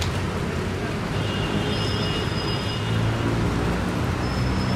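Steady city traffic on a rain-wet street: engines running with a low hum under a constant hiss. A thin high whine comes in twice, about a second in and again near the end.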